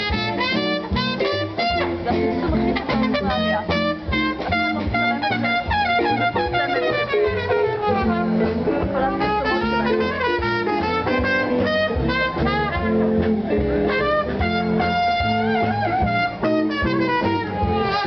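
Live jazz band playing, with brass leading over double bass and drums in a steady beat.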